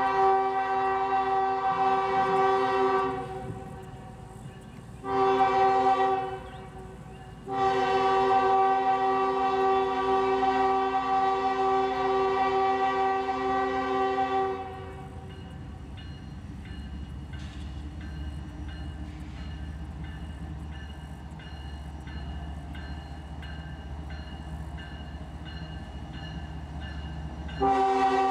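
Multi-chime air horn of a CSX diesel locomotive sounding for a grade crossing: a long blast, a short one, then a long one held about seven seconds. Then the low, steady rumble of the light engines' diesels as they draw closer, and another short horn blast begins near the end.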